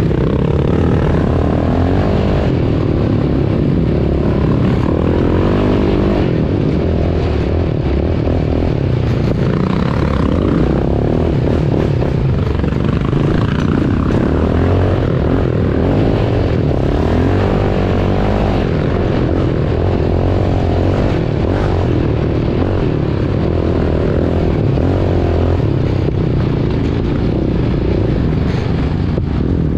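ATV engine running under way, its revs rising and falling.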